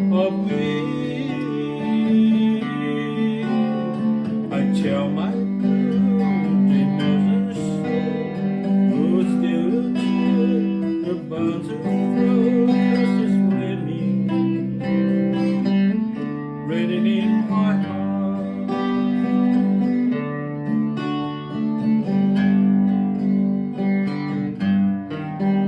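Early-1960s pop ballad recording playing: strummed acoustic guitar with band accompaniment, and a singing voice in parts.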